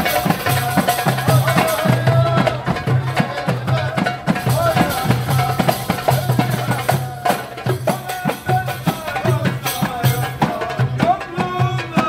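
Live folk music from a street band: frame drums beating a quick, steady rhythm under a held, wavering melody line.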